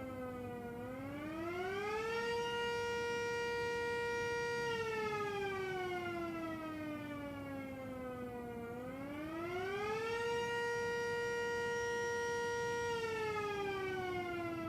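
Miniature Sterling M siren wailing, heard from a couple hundred feet away. Its single tone climbs in about a second and a half, holds steady for a couple of seconds, then slowly winds down over about four seconds, and the cycle happens twice.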